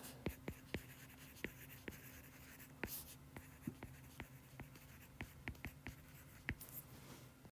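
Faint taps and scratches of a stylus tip writing on a tablet screen: irregular sharp ticks a few times a second over a faint steady hum.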